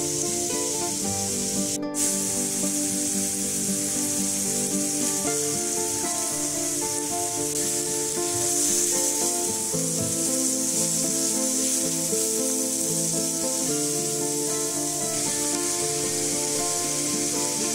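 Food sizzling steadily in hot oil in a frying pan, over background music of sustained notes. The sizzle breaks off for an instant about two seconds in.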